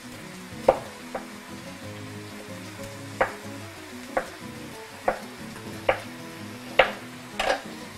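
Chef's knife slicing a red onion into rings on a wooden cutting board: eight sharp knocks of the blade on the board, spaced unevenly about a second apart.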